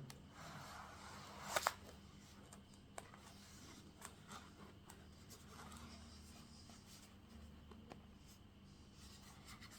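Faint handling of a Swiss Army pocket knife in the hands, with a few small clicks and ticks as its tools are fiddled with, the sharpest a double click about one and a half seconds in, over a low steady hum.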